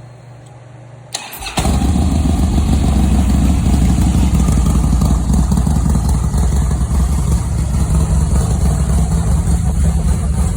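A 2007 Harley-Davidson Night Train's 107-cubic-inch Screaming Eagle Stage 2 V-twin with a T-Man 590 cam is started: a click and a short crank about a second in, then it catches and idles steadily and loudly through a D&D Fat Cat exhaust.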